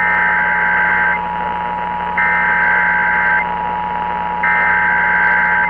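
Emergency Alert System header heard over AM radio: three bursts of about a second each of screechy digital data tones, evenly spaced, sounding over a steady two-note tone.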